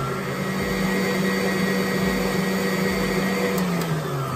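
Stand mixer motor running with its wire whisk beating egg-and-sugar sponge batter: a steady hum with a higher whine. Near the end the motor winds down as it is switched off.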